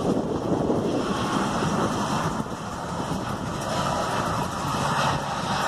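Boeing 737 airliner's jet engines rolling out after landing without reverse thrust: a steady, even rush of engine and air noise.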